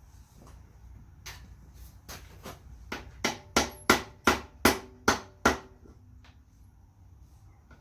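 A hammer striking the intake manifold of a 454 big-block engine to break it loose: a few light taps, then a run of seven sharp, ringing blows about three a second.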